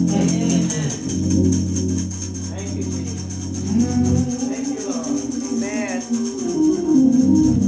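Tambourine shaken in a steady, even rhythm over sustained low instrumental notes, which drop away about four seconds in, with a man humming a melody into a microphone.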